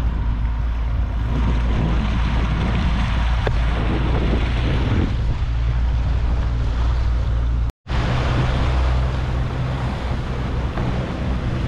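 Mercury Verado four-stroke outboard running steadily at a little above idle, pushing the boat slowly, under wind and water noise. The sound cuts out for an instant about eight seconds in, then carries on the same.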